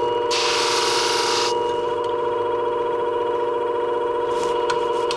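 Shear-sharpening machine's motor running with a steady hum while the tip of a beauty shear blade is ground against the spinning hone wheel, a harsh hiss for about the first second and a half. Then the hiss stops and the motor runs on alone, with a few light clicks as the shear in its clamp is handled.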